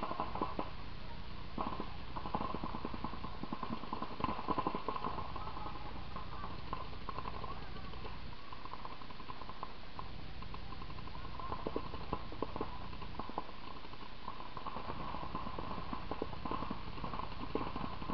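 Paintball markers firing rapid strings of pops, in several bursts, the densest volley about four seconds in.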